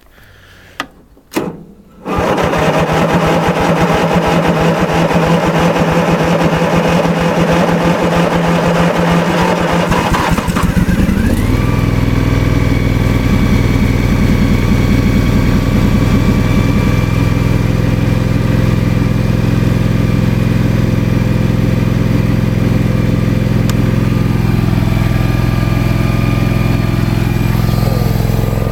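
The 16 hp Briggs & Stratton engine of a 1994 Simplicity Broadmoor lawn tractor being cold-started after months parked: a click, then the starter motor cranks it steadily for about eight seconds before it catches, rises in speed and settles into a steady run.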